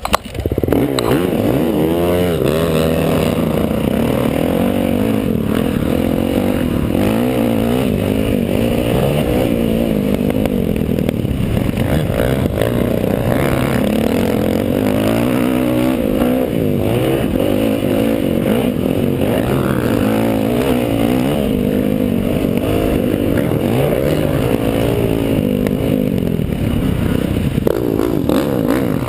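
Motocross bike engine at hard throttle off the race start. It comes in suddenly at once and runs loud throughout, its pitch climbing and dropping again and again as the rider shifts and works the throttle.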